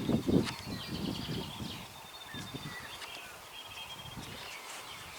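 Wind buffeting the microphone in irregular gusts, loudest in the first two seconds, with small birds chirping and trilling in the background.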